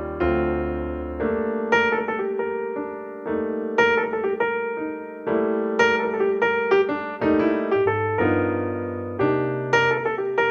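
Background music: piano playing struck chords and notes, each fading away before the next.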